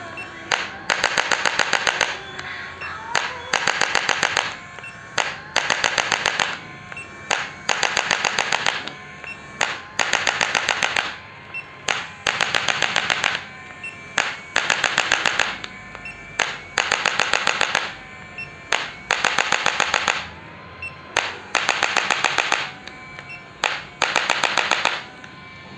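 Electric spinal adjusting instrument firing bursts of rapid clicks, each burst about a second long and repeated every couple of seconds, as it delivers impulse thrusts to the L5–S1 segment of the lower spine.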